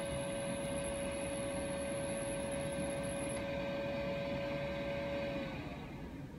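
3D printer running with a steady whine and fan hum that winds down slightly in pitch and fades about five and a half seconds in.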